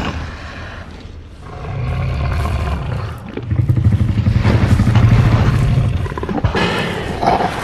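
A deep, rumbling creature roar used as a sound effect, swelling about two seconds in and easing off near the end, where a brighter, hissing sound takes over.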